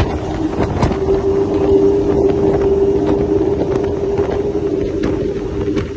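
Five outboard engines on a center console speedboat running at full speed, near 90 mph: a steady high-pitched drone over wind and water noise.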